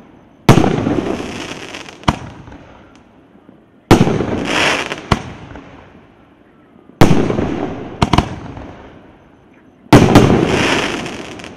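A 2-inch, 19-shot fireworks cake firing shot by shot. Each shot is a short sharp pop as a tube launches, then about two seconds later a loud bang as the shell bursts in the air, fading over a second or two. There are four big bangs, roughly three seconds apart.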